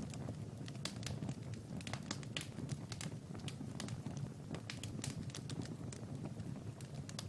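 Fireplace fire crackling: irregular sharp pops and snaps, several a second, over a steady low rumble of the flames.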